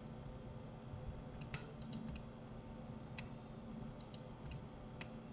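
A handful of separate clicks of a computer keyboard and mouse, spread unevenly over a few seconds, over a faint steady hum.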